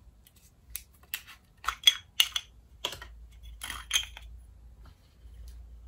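Plastic pill-organizer compartments being handled, pulled apart and opened by hand: a quick run of small, sharp plastic clicks and clacks over about three seconds, then fading out.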